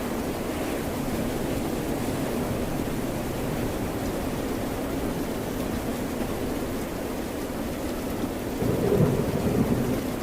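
Rain and ocean waves: a steady low rushing noise that swells louder about nine seconds in, as a wave breaks or thunder rumbles.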